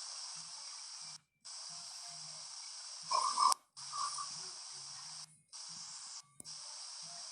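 A man snoring in his sleep: a loud snorting snore a little after three seconds in, then a shorter, weaker one, over a steady hiss.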